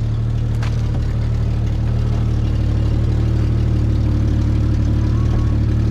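Jeep Cherokee XJ engine idling steadily, with one short click about half a second in.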